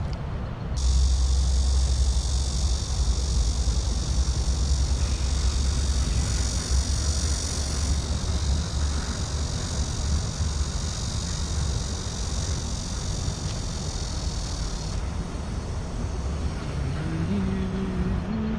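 Wind buffeting the microphone in a steady low rumble, under a high, even buzz that starts about a second in and cuts off abruptly near the end. A low pitched tone steps upward in the last couple of seconds.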